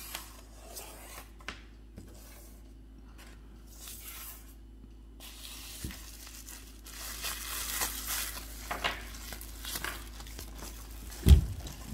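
Packaging being torn open and rustled while miniatures are unwrapped, with light handling clicks at first, the rustling growing busier about halfway through, and one dull thump near the end.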